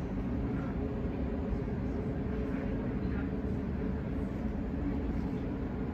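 Steady rumble of a Sydney Trains Waratah A set electric double-deck train running, heard inside the passenger carriage.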